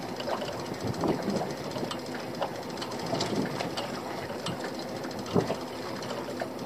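Fishing reel being wound in on a boat rod with a mackerel hooked, a steady mechanical clatter with a few scattered knocks.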